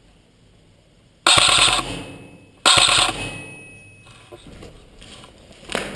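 Airsoft rifle firing two short full-auto bursts about a second and a half apart, each starting sharply and fading away.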